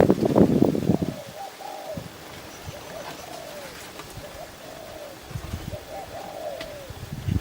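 Doves cooing: a run of short, soft, arched coos repeating one after another. A loud burst of rustling noise fills the first second.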